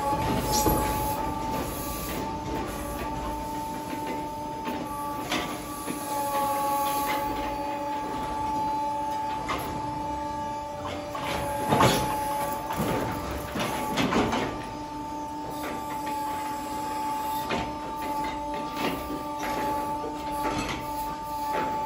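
Telehandler with a bale grab tearing open an alfalfa bale: a steady mechanical whine from the machine's engine and hydraulics, over the rustle of loose hay. Sharp knocks come now and then, the loudest about twelve and fourteen seconds in.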